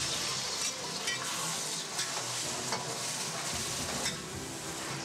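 Marinated squid sizzling in a hot metal wok, starting abruptly as it goes in, while a metal spoon stirs it with scattered scrapes and clinks against the pan.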